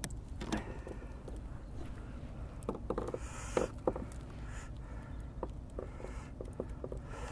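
Scattered light clicks and knocks of hands handling fishing tackle on a plastic kayak, with a short rustle about three seconds in.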